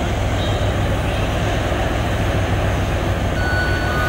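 Twin-section 2M62 diesel locomotive pulling away with a passenger train, its engine running with a steady deep rumble. A thin high steady tone starts near the end.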